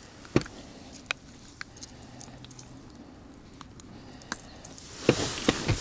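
Scattered clicks, light knocks and small rattles of a freshly caught perch being unhooked from a rattlin lure by hand, with a cluster of louder clicks and rustling near the end.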